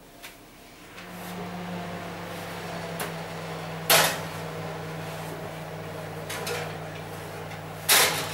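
Kitchen oven's fan starting up with a steady low hum, with two loud clunks about four seconds apart as the oven door and baking trays are handled.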